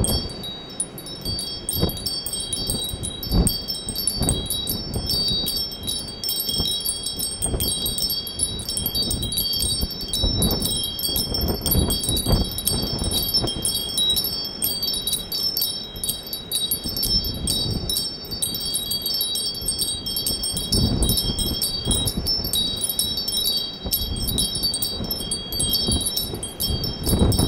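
Wind chimes ringing continuously, many high tones struck again and again, over a low gusting rumble.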